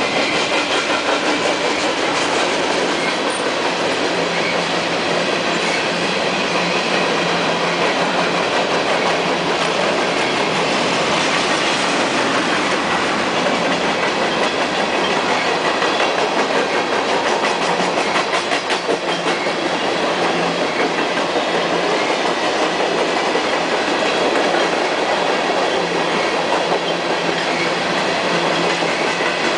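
Freight train of tank cars rolling past, a steady loud rumble of steel wheels on rail, with stretches of rapid clickety-clack as the wheels cross rail joints.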